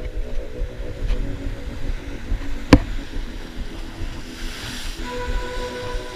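Wind buffeting the microphone over surf washing against the rocks, with one sharp click about three seconds in. A steady whining tone starts about five seconds in.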